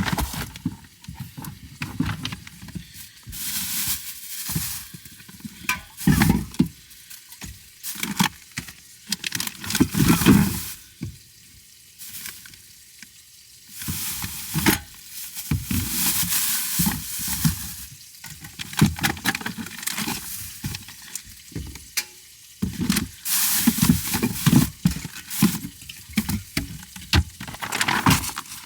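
Food frying and sizzling in a pan, with the sound surging and dropping irregularly as it is stirred.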